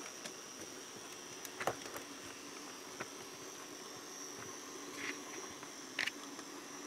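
Bachmann HO-scale GP40 locomotive running slowly on a train-set track: a steady high-pitched motor whine with a few sharp clicks.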